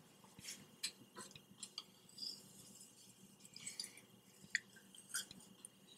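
Faint, scattered clicks and short scrapes of a spoon against a container while peanut butter is scooped out to add to the dough.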